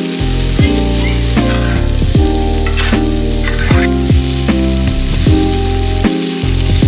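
Diced vegetables and red onion sizzling in oil in a nonstick frying pan while a spatula stirs them, over background music with a steady beat and heavy bass.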